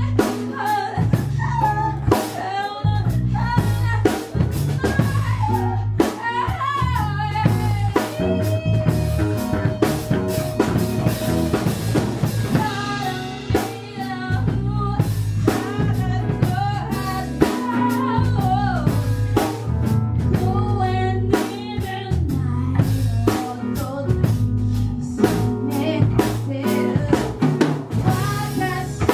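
A song with a sung melody over a drum kit and bass line; one note is held for a few seconds about a third of the way in.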